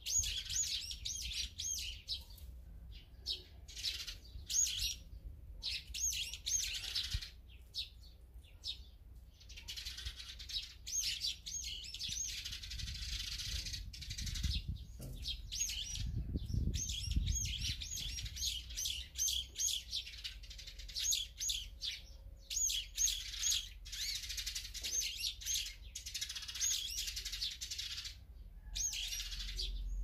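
Small songbirds chirping and twittering in dense overlapping bouts, with short lulls between them. A low rumble comes in about halfway through.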